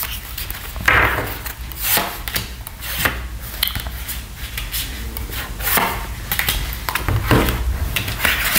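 Tarot cards being drawn from a deck and laid down on a wooden tabletop: irregular taps and short sliding rubs of card on wood.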